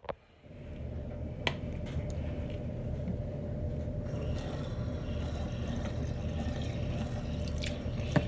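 Bathroom sink faucet running in a steady stream, starting about half a second in, with a light knock about a second and a half in.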